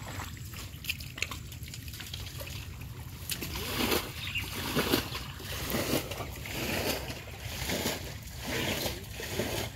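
Shallow muddy water sloshing and splashing as people wade and scoop through it by hand, in irregular splashes that get busier and louder about a third of the way in.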